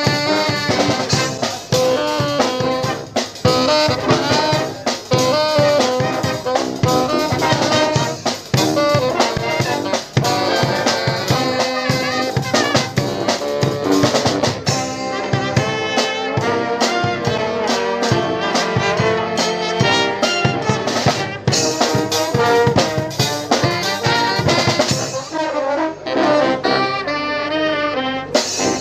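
Live brass band playing an upbeat tune, with trombones and trumpets over a steady beat; the sound thins out near the end.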